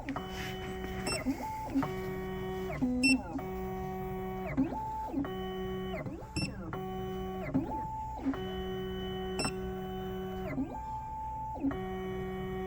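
Black Widow computerized key machine running its cut cycle on a Honda stainless steel key: its stepper motors whine at a series of held pitches that slide up or down as the carriage moves between positions, with a sharp click every second or two.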